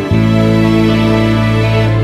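Background music of sustained, held chords over a steady low tone, with a momentary dropout right at the start.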